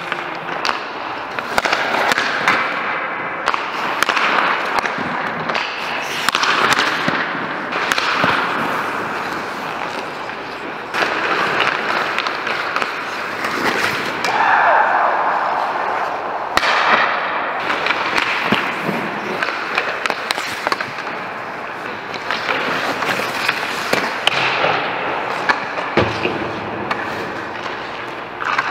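Ice hockey skate blades scraping and carving across the ice, with sharp clacks of stick and puck against pads, ice and boards. One longer, louder scrape comes about halfway through.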